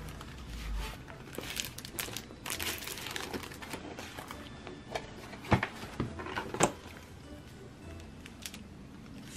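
Clear plastic screen-protector film and its cardboard sleeve being handled: crinkling and rustling, with a few sharp crackles a little past halfway. Soft background music runs underneath.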